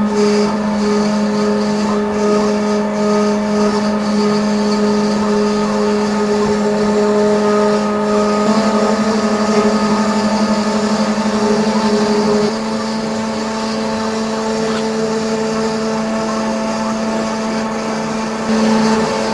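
Plus Mill S5 five-axis dental milling machine running, its spindle whining steadily with several held tones as a thin end mill cuts a zirconia disc. The pitch of the whine shifts about twelve seconds in.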